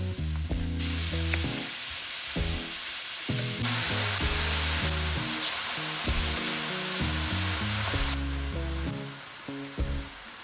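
Food sizzling in hot oil in a frying pan over background music. The sizzle starts about a second in, gets louder around four seconds in, and cuts off suddenly about eight seconds in.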